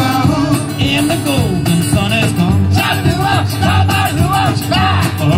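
Live band playing a song, with guitars and drums keeping a steady beat and a wavering melody line sung or played over the top.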